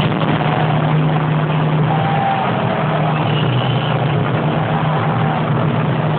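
Loud, steady stadium crowd din over a low steady hum, heard through a phone's microphone, with a few faint drawn-out calls rising above it.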